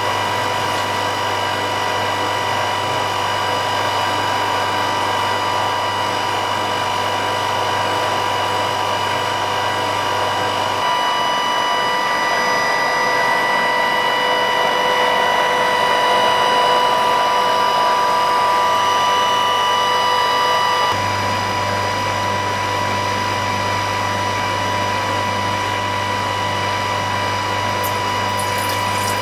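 Electric pump of a Pulcino plate filter running steadily, pushing mead through fine 0.7-micron filter plates. It gives a continuous motor hum with several held tones, which shifts slightly about ten seconds in and again about twenty seconds in.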